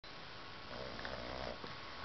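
A sleeping pet snoring: one snoring breath starting about half a second in and lasting under a second.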